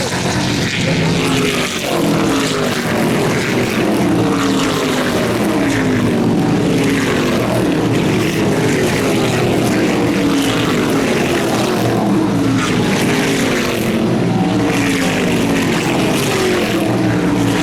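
Stock Car Brasil race cars' V8 engines passing in a stream at racing speed. The pitch of each car falls as it goes by, one after another, with no break.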